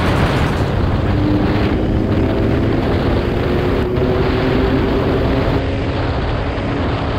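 Motorcycle cruising in sixth gear: heavy wind rush buffeting the camera's microphone, with a steady engine note underneath.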